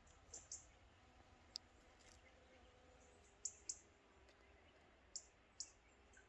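Near silence with a few faint, sharp clicks, mostly in close pairs.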